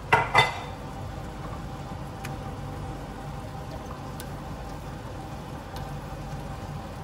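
A wire whisk clinks twice against a stainless frying pan right at the start, then a steady hiss from the pan of sauce on the gas hob, with a few faint taps of the whisk.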